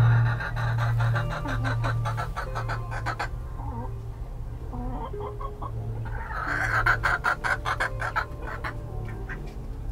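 Easter Egger hen clucking in two runs of quick, short notes, one over the first few seconds and another about six to eight seconds in, as she sits in the nest box waiting to lay.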